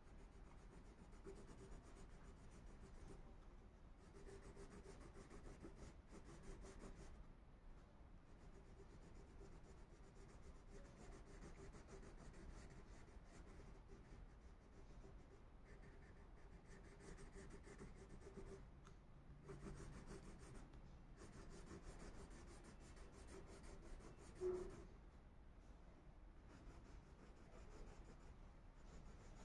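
Faint scratching of a blue Faber-Castell crayon rubbed back and forth on paper, shading in a large area. One brief knock near the end.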